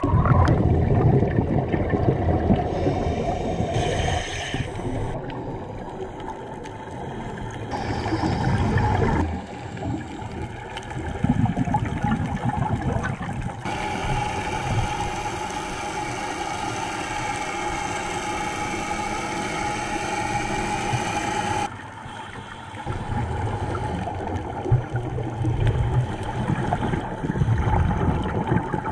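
Underwater audio from a scuba dive. It opens with the splash and rush of bubbles from a diver's entry, then muffled rumbling and bubbling water. A steady humming drone runs through the middle, and the sound changes abruptly several times where the shots are cut together.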